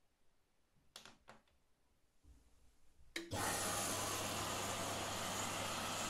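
Candy GrandO Plus washing machine starting its cycle: two light clicks as the start button is pressed, then about three seconds in a click and a sudden loud, steady rush of water as the inlet valve opens and the machine begins filling, with a low hum under it.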